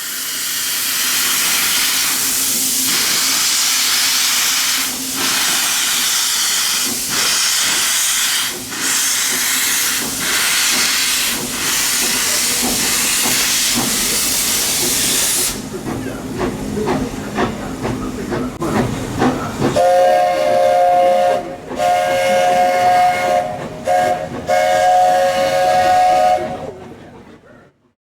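Steam locomotive letting off a loud, steady hiss of escaping steam for about fifteen seconds, followed by a few seconds of rougher, lower noise. Then its Buckeye three-chime steam whistle sounds a clear chord in three blasts close together before fading out.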